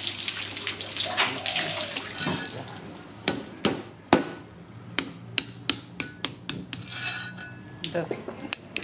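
Water splashing for about two seconds, then from about three seconds in a run of sharp knocks, roughly three a second, of a kitchen utensil or blade striking a hard surface.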